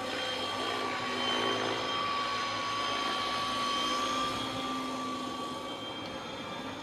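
ALIGN T-REX 550X electric RC helicopter in flight, its motor and rotor giving a steady high whine whose pitch drifts a little as it manoeuvres.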